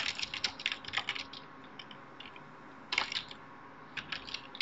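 Typing on a computer keyboard: a quick run of keystrokes, a short pause with a few light taps, then one harder keystroke about three seconds in and more keystrokes near the end.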